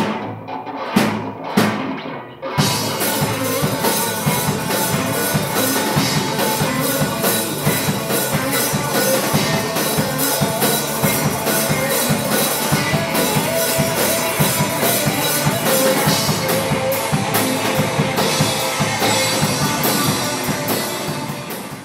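Rock band playing on electric guitars, bass and drum kit. A few separate hits open it, then about two and a half seconds in the full band comes in with a steady beat, and the sound fades out at the very end.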